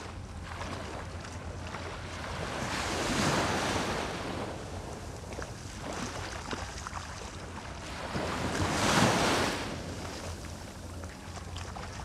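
Small sea waves breaking and washing up a sandy beach, swelling louder about three seconds in and again, louder still, about nine seconds in. Wind rumbles on the microphone throughout.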